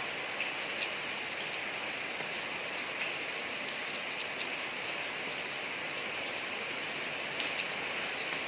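Steady rain falling on a street, an even hiss with scattered sharper drop ticks.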